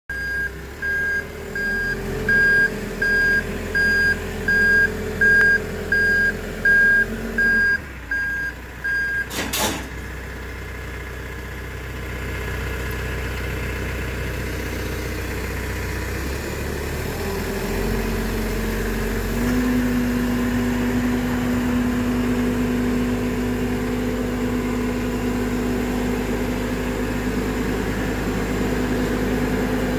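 Genie GTH telehandler reversing, its backup alarm beeping about one and a half times a second over the diesel engine for the first nine seconds, then a brief sharp noise. The engine then runs steadily and speeds up around two-thirds of the way through, holding the higher revs to the end.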